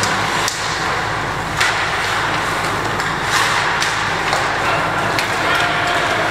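Youth ice hockey play on an indoor rink: a steady wash of skates scraping the ice, with several sharp clacks of sticks hitting the puck and each other.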